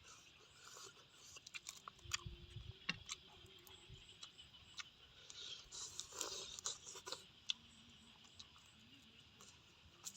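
Faint crunching and scattered sharp clicks of someone chewing, densest about six seconds in, over a steady high hiss.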